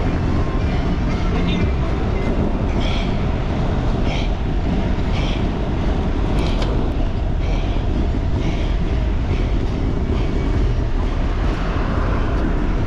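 Wind buffeting the microphone of a bicycle-mounted camera moving at about 20 mph: a steady, loud, low rumble. Faint short sounds recur about once a second over it.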